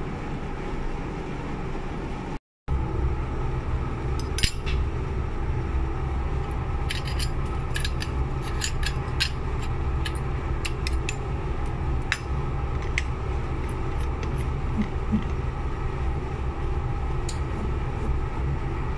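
A steady low background hum, with a brief dropout about two and a half seconds in. From about four seconds on, scattered small clicks and scrapes of a thermos cup's stainless-steel lid being handled and screwed on.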